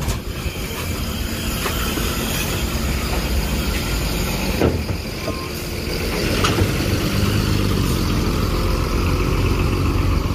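Tour bus diesel engine running as the bus rolls off the ferry ramp, getting louder about six seconds in, with a few short knocks.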